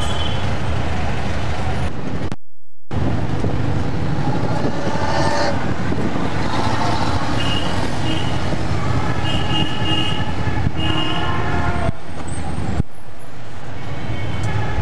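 Busy city street traffic heard from inside a moving taxi: steady engine and road noise, with car horns tooting several times in the second half. The sound cuts out briefly about two and a half seconds in.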